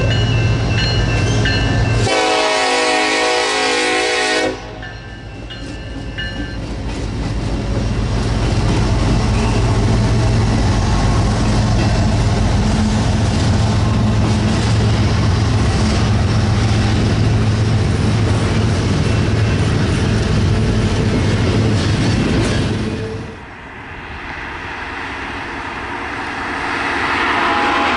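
A train passing close by. Its horn sounds a chord blast a couple of seconds in, followed by a long steady rumble and rush of the train going by. The sound changes abruptly twice, and the horn starts again near the end.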